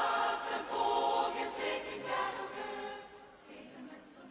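A group of voices singing together as a choir, fading out about three seconds in.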